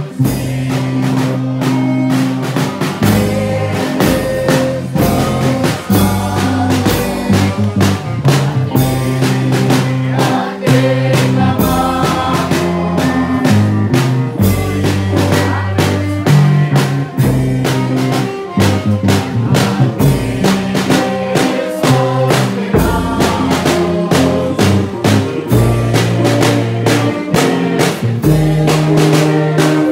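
Brass band playing live and loud at close range: saxophone and trumpet carrying the tune over a steady drum beat and held low bass notes.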